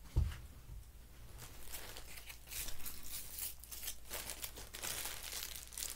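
A thump just after the start, then intermittent crinkling and rustling of something being handled.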